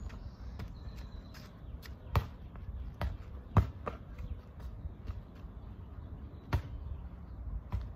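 A rubber ball bouncing and thudding on an asphalt driveway, about five separate impacts, the loudest about three and a half seconds in.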